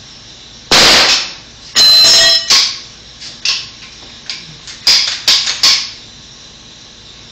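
Two loud hammer blows with a metallic ring, about a second apart, at the bottom plate of a wood stud wall, followed by several lighter knocks.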